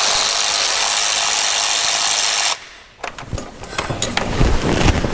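A steady loud hiss that cuts off suddenly about two and a half seconds in, followed by irregular clicks and metallic taps of ratchet and wrench work on thermostat housing bolts.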